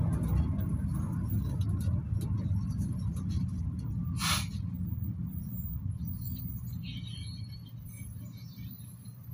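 Cabin sound of a GAZelle Next minibus with an Evotech 2.7 engine, slowing in traffic: the low engine and road rumble fades steadily as the bus comes up behind the cars ahead, with a short hiss about four seconds in.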